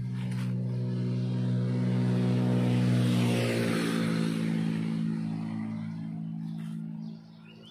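A motor vehicle passing by: its engine grows louder to a peak about three seconds in, drops in pitch as it goes past, then fades away, falling off abruptly near the end.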